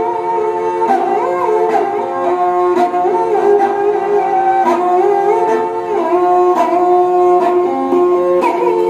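Kamaicha, the bowed folk fiddle of the Thar desert, playing a melody that slides between notes over steady drone notes.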